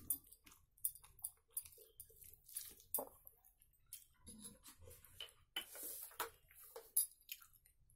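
Close-up eating sounds: mouth-closed chewing and lip smacks, with the squish of fingers mashing rice on a steel plate, heard as a string of faint, irregular little clicks.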